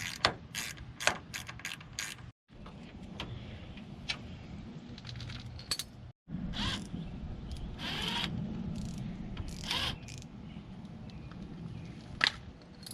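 Small metallic clicks, rattles and scrapes from tools and door handle hardware being worked on a car door, over a steady low hum. The sound cuts out completely twice.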